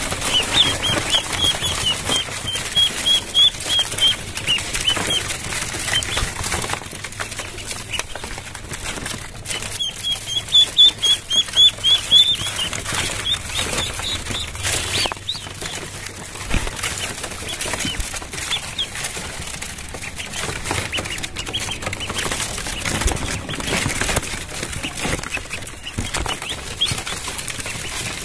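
Ducklings peeping in quick runs of short, high chirps while they feed, with many small pecking and scuffling clicks on the tarp beneath them.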